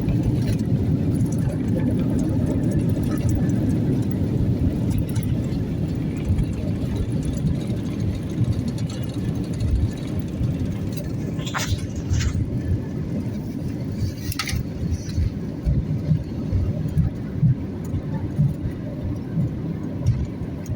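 Airliner cabin rumble on the runway just after landing: a loud, shaky low rumble of wheels and engines, with three sharp clicks around the middle.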